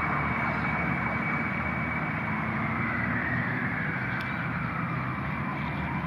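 Emergency vehicle siren on a slow wail: its pitch rises through the first half and falls again through the second, over a steady rushing noise.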